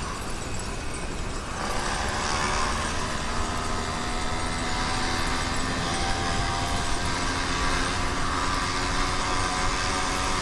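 The two-stroke YD100 engine of a motorized bicycle running steadily while the bike is ridden. Its engine note comes in clearly about two seconds in, over a steady rush of noise.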